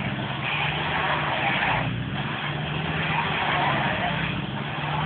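Diesel box lorry's engine running steadily under load while its drive wheel spins on snow, the lorry stuck and unable to climb, with a steady hiss over the engine drone.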